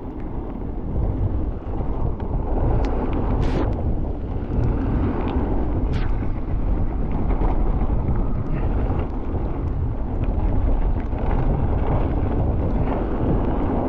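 Wind buffeting the microphone of a camera on a mountain bike descending a wet trail, over a steady low rumble of tyres and bike, with a few sharp clicks and rattles.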